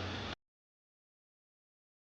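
The tail of a man's speech cuts off abruptly about a third of a second in, followed by dead digital silence.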